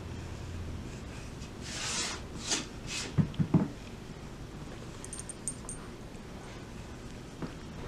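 A cat's paw scraping and tapping a small carved red earthenware block held in a hand: three short rough scrapes about two seconds in, then three quick soft knocks, and a few faint light clicks around five seconds in.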